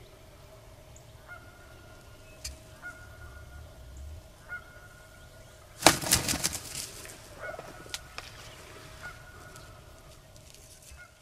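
Wild turkey gobbler beating his wings: a loud flurry of wing flaps about six seconds in, trailing off over about a second.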